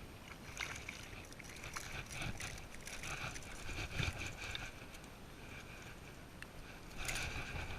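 Kayak on the water: irregular splashing and knocks from paddling, with a steady high chirring in the background that comes and goes.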